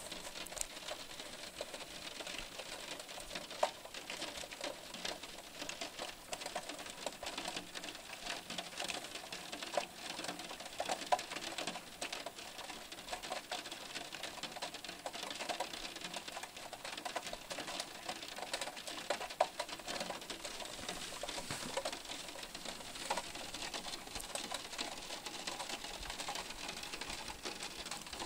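Steady rain: a dense, continuous patter of drops, with a few louder single drops standing out now and then.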